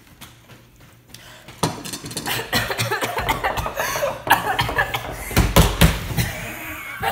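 Kids coughing, gasping and laughing from the burn of extremely spicy instant noodles, starting about a second and a half in, with a few low thumps around the middle.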